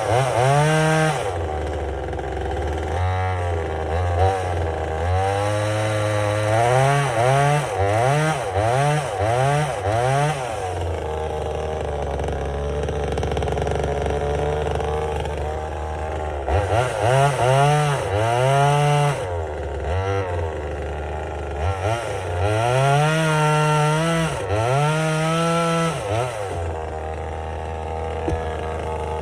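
Vevor 25.4cc two-stroke top-handle chainsaw idling and being revved over and over, each rev rising and dropping back to idle: a freshly started new saw being warmed up and run in. There is a quick series of short revs early on, then several longer, higher revs later, with steady idling in between.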